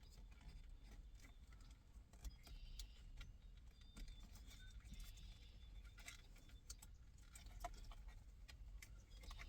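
Faint, scattered clicks and light rattling of small parts being handled, as a wiring connector is worked into place on a car steering wheel.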